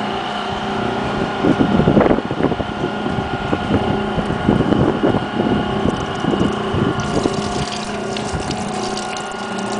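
Antique Easy wringer washing machine running on its electric motor, a steady hum, with the power wringer's rollers turning. Irregular clattering and rustling come in about a second and a half in as a tangled rag goes through the wringer, and lighter clicks follow near the end.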